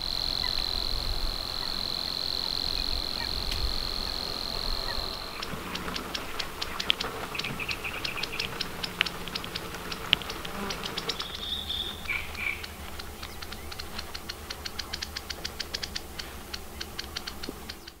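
Songs of small warblers in a reedbed. For the first five seconds a steady, high, insect-like reeling trill, which breaks off. Then a different song of dry ticks and short chirps, the ticks coming fast and evenly in the second half.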